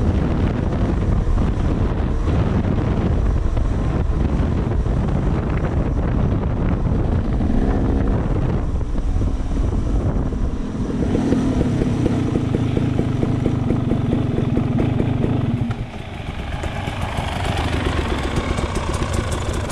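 Dirt bike engine running while riding a gravel road, with wind buffeting the helmet microphone. About sixteen seconds in the engine drops off and settles to idle, with another dirt bike running close by.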